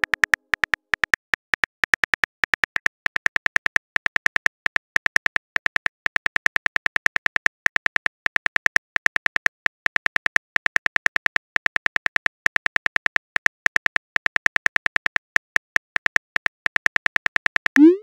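Simulated phone-keyboard typing clicks from a texting-story app, a fast even run of about six or seven taps a second, ending in a short rising swoosh as the message is sent.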